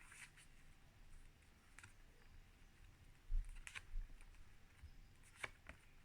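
A few faint clicks and taps of handling, with a soft low thump about three and a half seconds in and two sharper clicks near the end.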